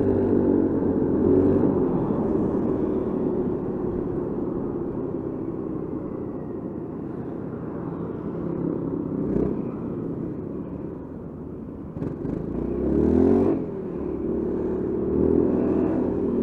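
Honda Forza 350 scooter's single-cylinder engine running under the rider, with road and wind noise. The engine note fades as the scooter slows in traffic, then rises sharply on a short twist of throttle about twelve seconds in. It drops off suddenly and settles back to a steady running note.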